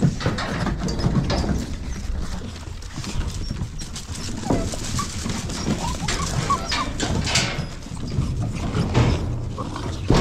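Pit bull puppies scrambling over wooden boards, many quick clattering paw steps, with a few short squeaks in among them.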